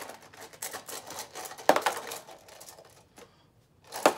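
Small Beyblade parts clicking and clattering as they are rummaged through in a metal tin, with a few sharper knocks; near the end a die is tossed and rattles across the plastic Beyblade stadium.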